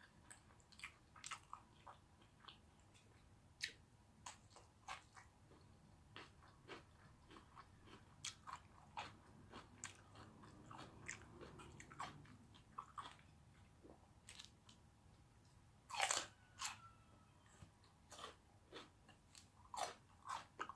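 Close-up mouth sounds of a person chewing food: scattered soft clicks and crunches, with a louder cluster of them about sixteen seconds in.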